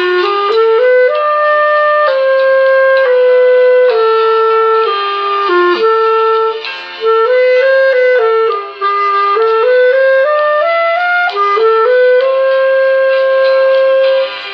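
Clarinet playing a slow, smooth melody of held notes that move mostly by step, with a few brief breaks between phrases.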